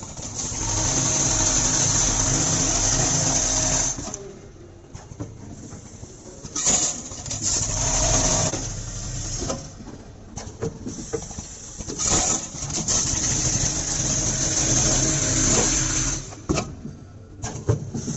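Automatic nail counting and boxing machine running: a steady mechanical hum with long stretches of loud hiss, the first about a second in and lasting some three seconds, and scattered clicks from its pneumatic parts.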